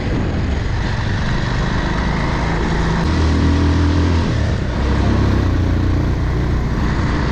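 Motorcycle engine running under way, mixed with steady wind rush on the microphone from riding. The engine note grows stronger about three seconds in.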